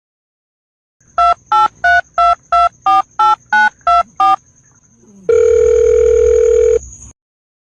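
Touch-tone telephone keypad being dialed: ten short two-note beeps at about three a second, then after a short pause a steady line tone held for about a second and a half that cuts off suddenly.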